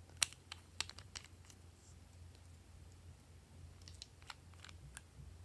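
Sharp plastic clicks from handling and twisting the caps of small shiny plastic bottles: a quick cluster of clicks in the first second and a half, then a few more near the end.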